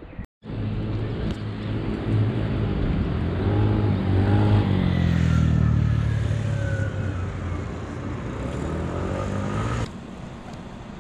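A motor vehicle's engine running close by, its pitch bending up and down, with a higher tone that slowly falls. It starts after a brief dropout near the beginning and cuts off abruptly about a second before the end.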